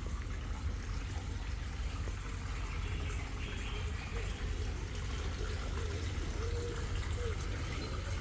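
Water trickling steadily at a koi pond.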